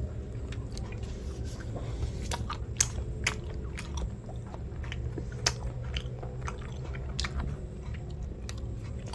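A person chewing a mouthful of soft sweet bread roll topped with chocolate sprinkles and cheese, close to the microphone. Many small wet mouth clicks and smacks are scattered through it.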